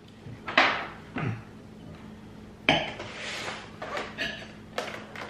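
A table knife sawing through a jelly donut, scraping and clicking against the plate in a few short strokes, with the plastic clamshell box handled alongside.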